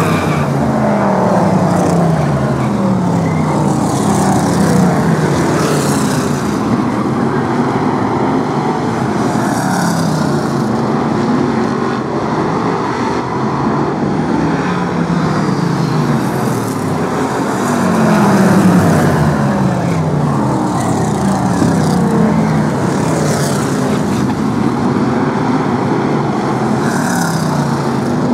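A pack of BriSCA F1 stock cars racing, their V8 engines running at high revs, the engine notes repeatedly sliding down in pitch as cars go by.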